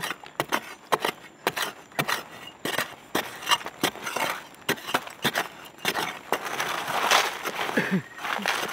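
Long-handled metal spade stabbing repeatedly into dry, crumbly soil, about two strikes a second, each a sharp scraping thud with loose earth falling around the hole.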